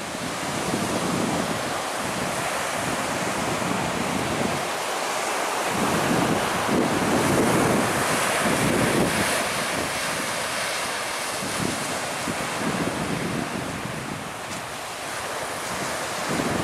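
Wind buffeting the microphone over a steady wash of surf, in uneven gusts.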